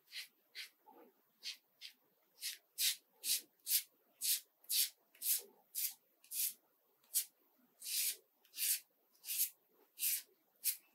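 Cartridge razor scraping over a lathered scalp in short, rasping strokes, about two a second, as it shaves the stubble smooth.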